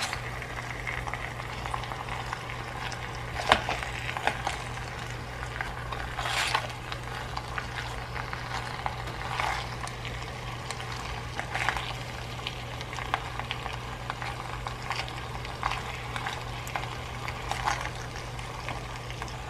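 A silicone spatula stirring penne and vegetables in a stainless steel Stanley camping pot, with short scrapes and taps against the pot every couple of seconds. Under it runs a steady sizzle from the pot heating in a Dash Mini Rice Cooker set to cook.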